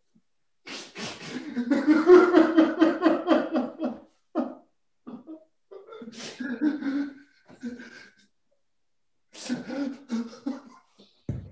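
A man venting frustration with wordless vocal outbursts: a loud, strained burst of about three seconds near the start, then shorter bursts of groaning later on.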